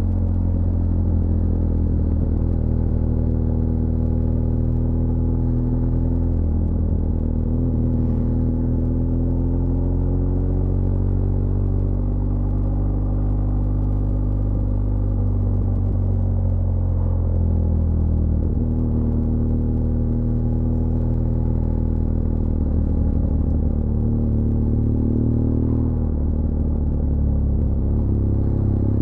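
BMW R1200GS LC Adventure's liquid-cooled boxer twin running on a downhill ride, with a low rumble. Its pitch rises and falls, jumping abruptly several times.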